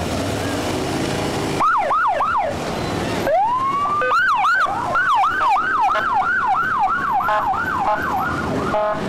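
Police motorcycle sirens on the move. About a second and a half in comes a short burst of fast yelping sweeps. Then a rising wail breaks into a steady yelp of about three sweeps a second, with a second siren overlapping near the end, all over the running motorcycle engines.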